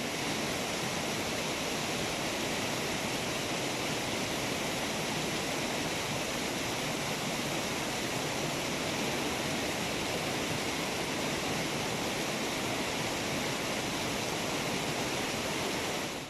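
Steady rush of a fast-flowing stream, an even wash of water noise that cuts off suddenly at the end.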